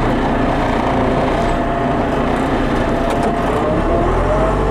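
Loader's diesel engine running steadily under load, heard from the cab, its pitch rising near the end as the revs climb.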